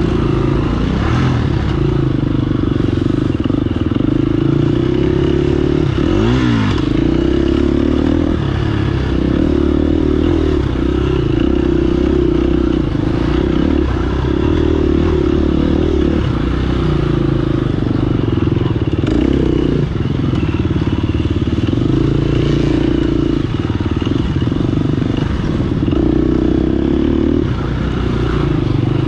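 Off-road racing motorcycle engine running hard under throttle, its pitch stepping up and down as the throttle and gears change, with a quick drop and rise in pitch about six seconds in.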